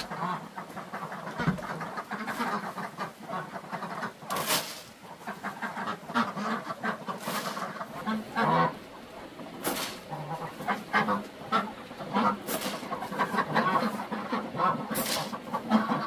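Farm poultry calling, with harsh, irregular quacking calls throughout. About half a dozen brief noisy swishes come through, spread a couple of seconds apart.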